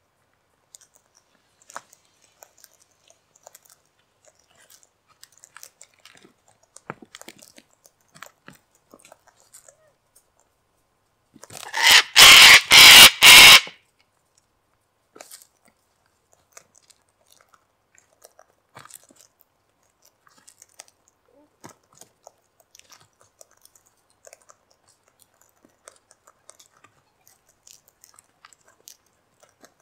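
Sulphur-crested cockatoos cracking seed in their beaks, a faint scatter of small crunching clicks. About twelve seconds in, one cockatoo gives a very loud, harsh screech about two seconds long, broken into about four pieces.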